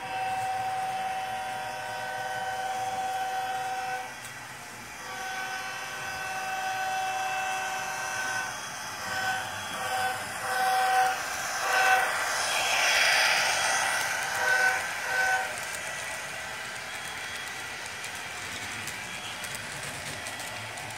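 HO scale Bachmann Norfolk Southern 8100 (Nickel Plate Road heritage) diesel model's DCC sound decoder blowing its horn: two long blasts, then a string of short toots. About twelve seconds in there is a louder rush as the locomotive passes close by. After that the freight cars roll past on the track with a steady running noise.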